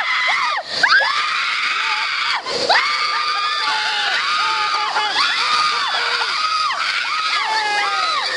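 Several women screaming and shrieking with thrill on a river-rapids raft ride. Long, high screams overlap one after another, with laughter among them.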